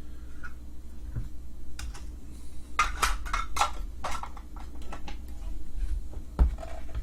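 Trading cards and their packaging being handled on a table: scattered clicks, taps and rustles, busiest about three to four seconds in, with one sharper knock near the end, over a low steady hum.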